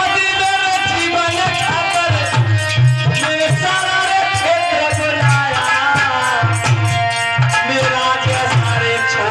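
Ragni, a Haryanvi folk song: a man sings into a microphone over hand drums that keep a steady beat.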